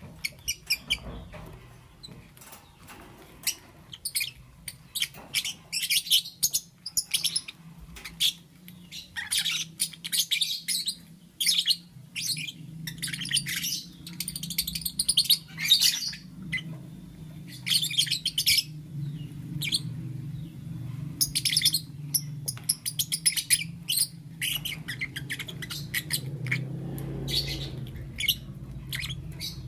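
Lovebirds chirping: rapid clusters of short, high-pitched chirps throughout, over a low steady hum.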